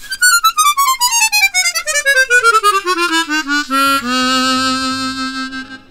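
Hohner Xpression 12-hole chromatic harmonica played in a fast run of short notes descending from the high register to the bottom, then one low note held for about two seconds.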